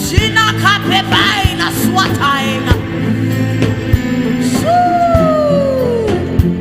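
Gospel worship music with a steady beat and held chords, and a voice singing wavering lines over it. About halfway through, a long sung or played note slides slowly downward before fading.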